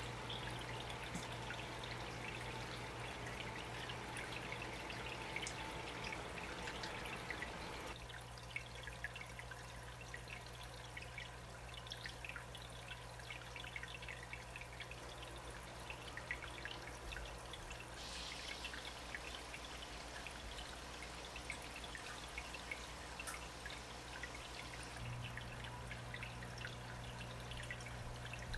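Aquarium water trickling steadily, with small drips and splashes at the surface, over a low steady hum. The sound shifts a little about 8, 18 and 25 seconds in.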